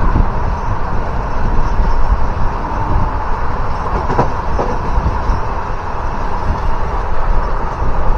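Passenger train coach running along the track, heard from its open doorway: a steady rumble of wheels on rails, with two sharp clicks about half a second apart a little after the middle.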